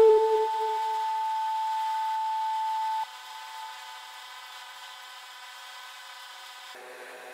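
Bridgeport Torq-Cut 22 CNC mill turning an aluminium part in its spindle against a fixed lathe tool. A steady high tone stops suddenly about three seconds in, leaving a quieter steady whine.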